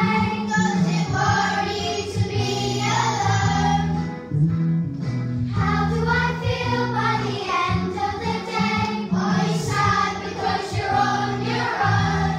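A children's choir singing a song together over held low accompaniment notes.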